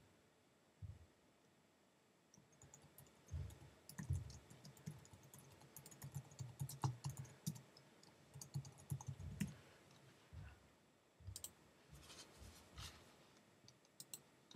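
Faint typing on a computer keyboard: a few seconds of quick key clicks with soft low thumps, then a few scattered clicks near the end.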